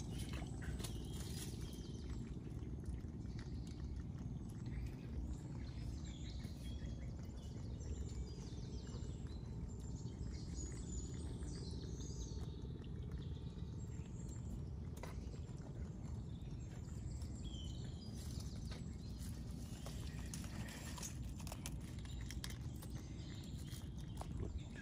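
Birds chirping in short, scattered calls over a steady low rumble, with occasional sharp clicks.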